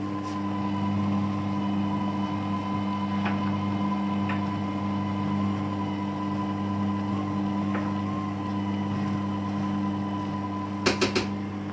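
Electric stand mixer running at a steady speed, its motor giving an even hum as it beats an egg in the stainless steel bowl. Three quick sharp clicks come close together near the end.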